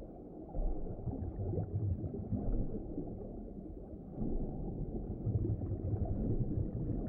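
Muffled ocean water ambience, as heard underwater: a low, shifting rumble of moving water with no clear events.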